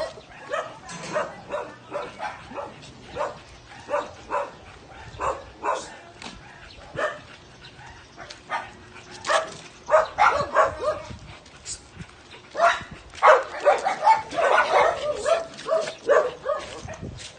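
Small dog barking in short, sharp yaps, roughly one or two a second, coming thicker in a longer run about two thirds of the way in.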